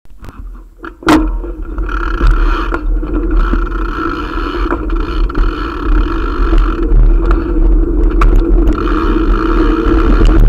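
A knock about a second in, then a bicycle rolling over concrete pavement: a steady rumble with a hum and a few scattered clicks.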